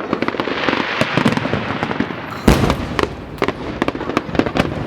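Fireworks display: a rapid run of bangs and crackling, with one heavy, deep boom about two and a half seconds in.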